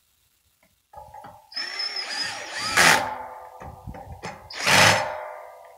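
Power drill driving self-tapping screws into the aluminum cover of a satellite dish base. The motor whines in short runs from about a second in, with louder surges about three and five seconds in.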